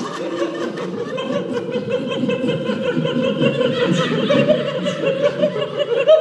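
A group of people laughing and chuckling together, many overlapping voices, with a held tone underneath that rises slightly near the end.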